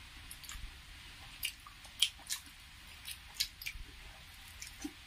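Close-miked wet eating sounds: chewing and lip smacks, with fingers squishing soft, saucy food, heard as a scatter of short separate clicks and smacks.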